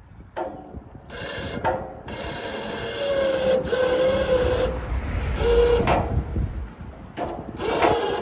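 A muddy wire shopping cart scraping and grating against the side of a bridge as it is hauled up out of the river, in several long scrapes with a squealing tone in the middle.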